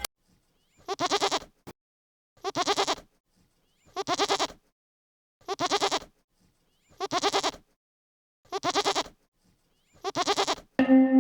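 A farm animal's bleat, the same fluttering call repeated seven times about every one and a half seconds.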